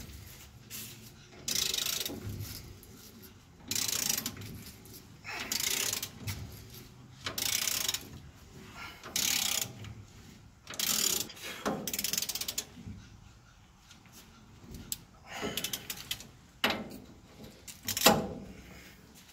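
Hand ratchet wrench clicking in about ten short runs, one every second and a half to two seconds, as it is worked back and forth loosening the leaf-spring U-bolt nuts by hand. The run near the end is the loudest.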